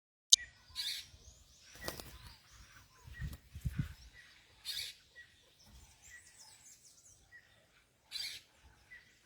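Wild birds calling and chirping around a fruit feeder, with a small high chirp repeating roughly once a second and louder high calls now and then. A sharp click right at the start, and a few low thumps about three seconds in.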